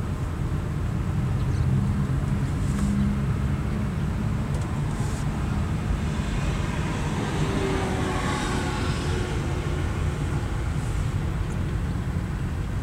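Low, steady engine and road rumble inside a moving car's cabin. About halfway through, a rushing noise swells and fades over a few seconds.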